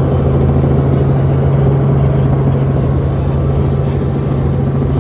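Helicopter's engine and rotor running, a loud, steady low hum heard from inside the cabin.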